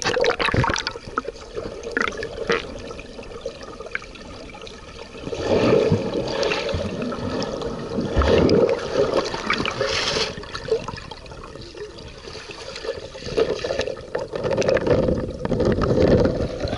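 Water gurgling and rushing around an underwater camera, churned by a Newfoundland dog swimming beside it. It starts suddenly as the camera goes under, then swells and fades twice.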